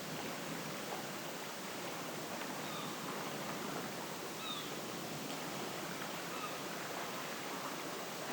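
Steady outdoor ambient hiss of an early-morning island soundscape, with a few faint, short bird chirps scattered through it.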